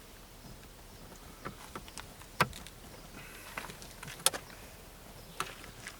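Scattered small clicks and knocks of hands and tools working on dashboard parts and trim, two of them sharper and louder, about two and a half and four and a half seconds in.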